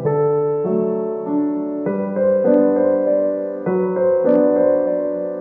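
Background piano music: a gentle keyboard tune whose chords change every second or so.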